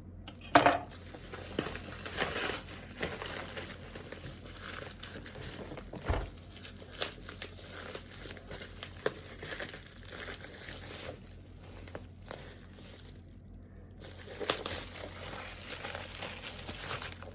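Packaging being handled during an unboxing: irregular crinkling and rustling, with a sharp knock about half a second in and another about six seconds in. A steady low hum runs underneath.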